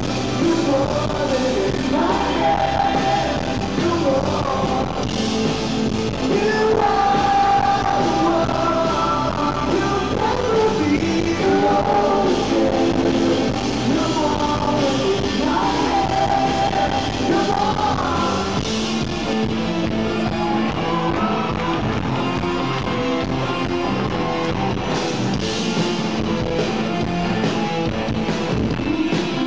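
Live rock band playing a song: keyboard synthesizer, electric guitar and drums with sung vocals.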